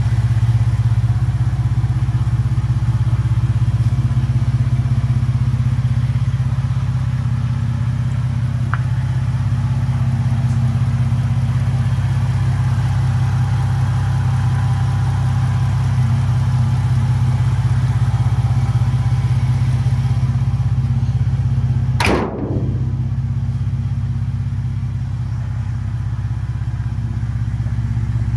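Ford Raptor's twin-turbo 3.5-litre EcoBoost V6, swapped into an old pickup, idling steadily with a low, even hum. A single short thump falls about three-quarters of the way through.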